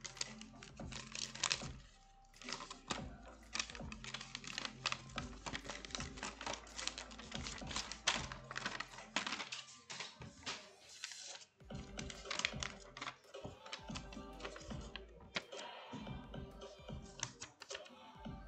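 Dense, irregular clicking and tapping of hands handling paper and objects on a desk close to the microphone, over faint background music.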